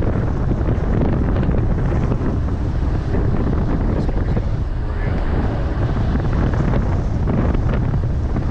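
Wind buffeting the microphone: a loud, steady rumble with no let-up.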